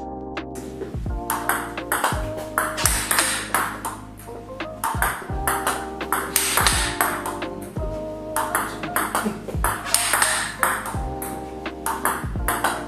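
Table tennis rally drill: a celluloid ball is repeatedly struck with forehand topspin drives off a TIBHAR Hybrid K3 rubber against backspin feeds and bounces on the table, a sharp hit every half second to a second, over steady background music.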